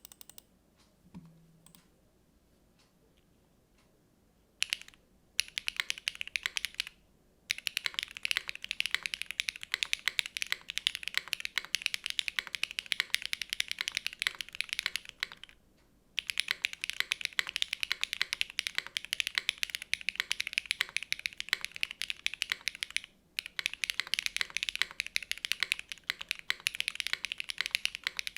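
Typing on a gasket-mounted SINGAKBD Kohaku mechanical keyboard with Keygeek B1 switches lubed with Tribosys 3204, a carbon fibre plate and GMK Olivia keycaps: a fast, steady run of keystrokes. It starts about five seconds in and pauses briefly three times.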